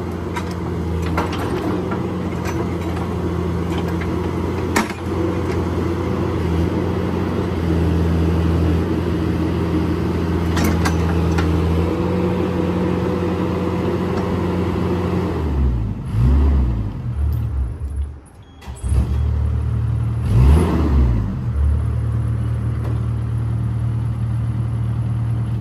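Bobcat 331 mini excavator's diesel engine running at a steady speed, with a couple of sharp clicks about 5 and 11 seconds in. Past halfway the engine speed falls and rises several times and the sound drops away briefly, then it runs steady again.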